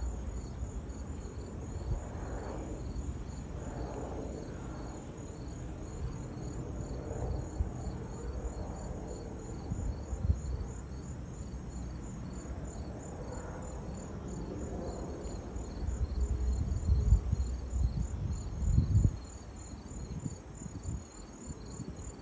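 Insects chirping steadily in a high-pitched, evenly pulsing chorus, with an irregular low rumble underneath that swells to its loudest for a few seconds near the end.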